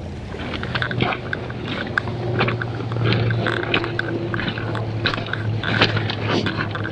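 Footsteps crunching irregularly on a gravel and shell beach.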